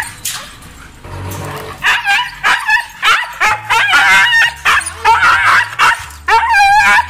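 Siberian husky giving a run of loud, high dog calls that bend up and down in pitch, starting about two seconds in and repeating closely, with a warbling call near the end.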